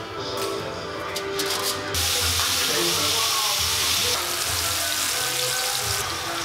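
Food sizzling in hot oil in a frying pan on a portable gas burner: a loud sizzle that starts suddenly about two seconds in and dies down near the end, after a few light clicks.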